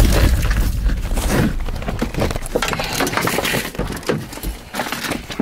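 A car side window being smashed: a loud crash right at the start, then a dense spray of crackling and tinkling as the broken glass crumbles and falls, slowly fading.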